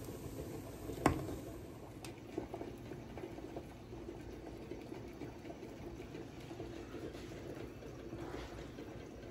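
Creamy chicken wing and macaroni soup boiling in a wide metal pan: a soft, steady bubbling, with one sharp tap about a second in.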